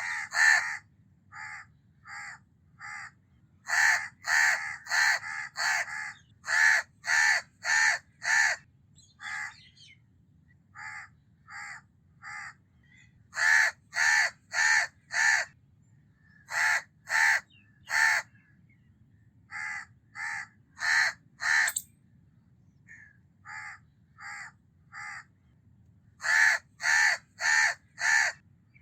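House crows (Corvus splendens) cawing: short, harsh caws in runs of three to six at about two a second, some runs loud and others fainter, with brief pauses between runs.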